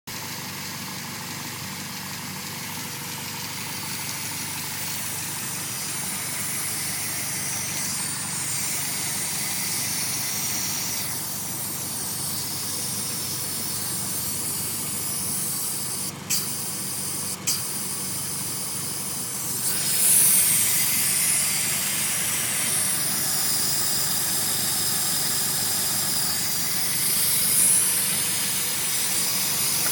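Honda B16A2 engine idling with a steady hiss of air being sucked through a small black fitting into the intake manifold; capping the fitting with tubing stops the hiss. The hiss gets louder about twenty seconds in, after two brief clicks.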